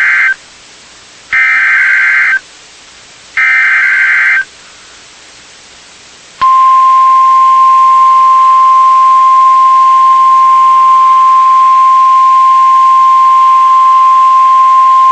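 NOAA Weather Radio emergency alert tones: the end of one burst of the SAME digital header, then two more bursts of warbling two-tone data about a second each with short gaps between them. After a pause of about two seconds, the steady 1050 Hz warning alarm tone starts about six and a half seconds in and holds. Together they signal an alert being issued, here a severe thunderstorm warning.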